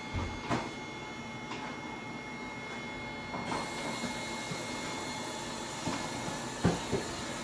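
Water running at a kitchen sink as a steady rush, growing brighter about halfway through, with a few light knocks and clinks.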